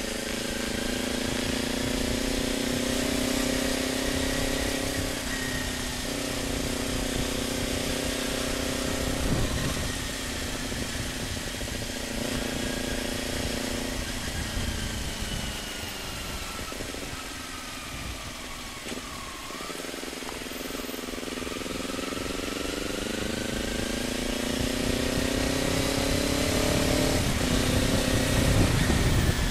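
Kawasaki Ninja motorcycle engine through an Akrapovic slip-on exhaust while riding: the note holds fairly steady, falls away as the bike slows about halfway through, then climbs again as it accelerates near the end. A low rumble of wind on the microphone runs underneath.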